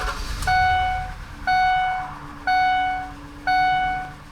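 A 2006 Ford E350's dashboard warning chime dings about once a second, each ding a single steady tone that fades away. Under it the engine cranks and catches near the start, then idles quietly: the truck starting after a blown PCM fuse was replaced.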